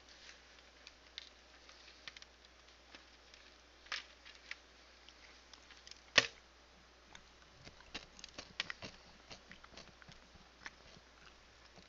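Faint scattered clicks and light rustling from hands handling food at a table, with a sharper click about six seconds in.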